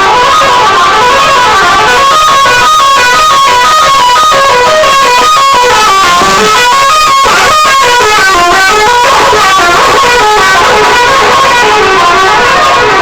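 Indonesian bus 'telolet' multi-tone horns playing fast, stepping melodies, with several horn tunes overlapping at different pitches in a horn-off between buses.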